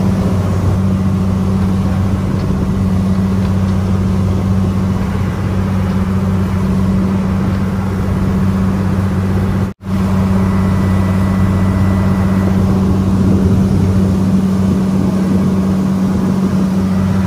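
A boat's engine running steadily underway, heard on board: a constant low drone with a steady hum. The sound cuts out for an instant about halfway through.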